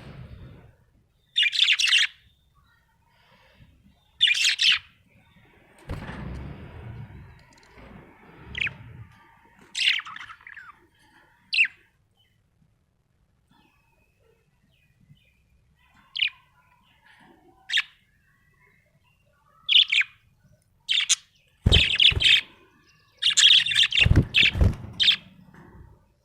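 Budgerigar chirping in short, separate high calls with pauses between them, bunching into a quick run near the end. Low rumbling thuds come in around the middle and again near the end.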